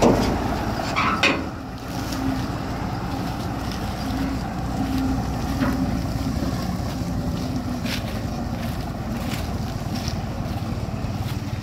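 IMT 542 tractor's diesel engine running steadily under load, driving a SIP Tornado 40 trailed forage harvester as it chops standing maize, with wind rumbling on the microphone.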